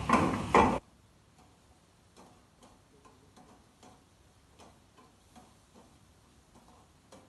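Metal ladle clattering in a wok as food is stirred over a gas burner. A loud burst with two sharp knocks in the first second cuts off suddenly. Faint regular ticks follow, about two a second.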